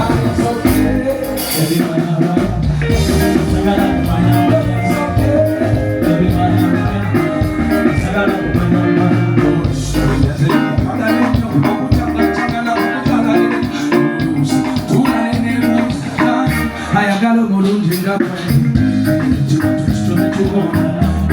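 Loud band music played over a sound system during a sound check.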